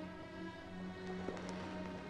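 Soft background film score with slow, held notes.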